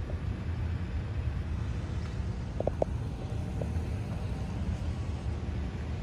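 Steady low rumble of distant road traffic, with a few short faint chirps about two and a half seconds in; the crossing bell is not ringing.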